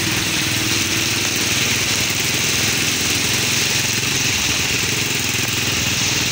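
Small motorcycle engine running steadily on the move, under a loud, even hiss of rain and wind.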